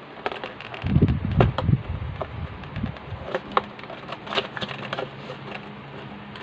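A cardboard box being handled and its top flap opened: scattered small clicks and scrapes of card, with a run of low thumps from handling about a second in.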